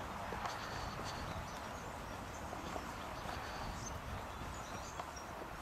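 Outdoor ambience: a steady background hiss with faint, short bird chirps and a few small clicks.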